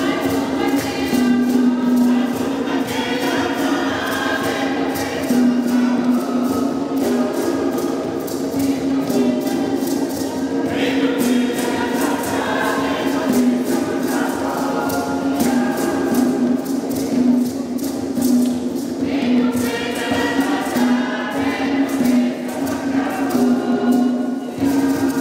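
A mixed choir of men and women singing together over a steady beat of hand drums and clapping, about two to three beats a second.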